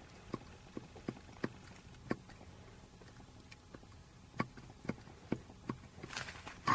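Worn Lada water pump bearing being turned by hand, giving sharp, uneven clicks about twice a second: the sign of a dead bearing. A louder rustle and knock near the end.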